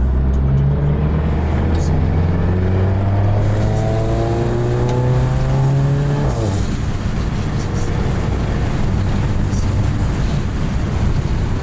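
Turbocharged four-cylinder of a tuned MK7 Golf GTI pulling hard, heard inside the car: the revs climb steadily for about six seconds, then drop abruptly as the throttle is lifted or a gear is changed, leaving road and wind noise.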